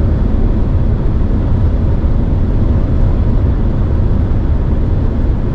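Steady low rumble of road and tyre noise, with a light wind hiss, inside a Volvo XC60's cabin at highway speed.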